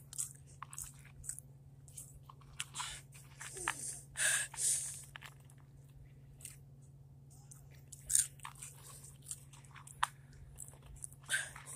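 Someone chewing hot chips close to the microphone: irregular crunches and bites, a few louder than the rest.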